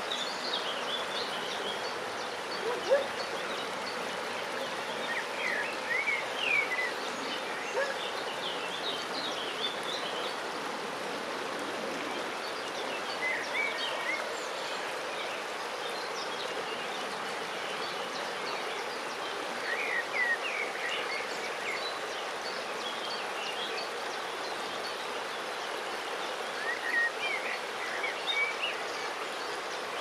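Shallow river flowing and rippling steadily over stones and driftwood, with a small bird singing short twittering phrases every few seconds.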